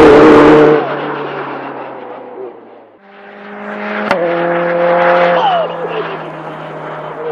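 Hyundai RM19's turbocharged 2.0-litre inline-four race engine running under power as the car pulls away, dropping sharply under a second in and fading out over the next two seconds. Its note then returns at a distance and grows, with a sharp click and a drop in pitch at gearshifts of its sequential gearbox.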